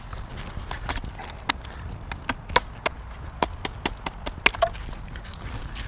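Small wood fires crackling and popping inside two folding stainless-steel stoves: sharp, irregular pops, busiest through the middle, over a low steady rumble.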